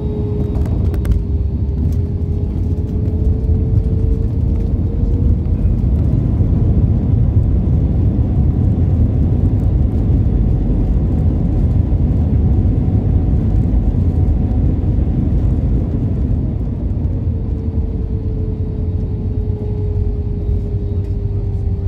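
Jet airliner on the ground just after landing, heard from inside the cabin: a steady low rumble of engines and rolling wheels, with a thin engine whine that fades out after a few seconds and comes back near the end.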